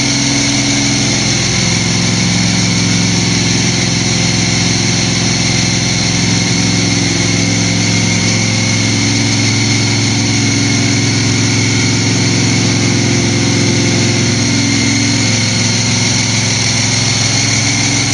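Freshly built supercharged V8 engine, a Roots-type blower on top, idling steadily on its first run.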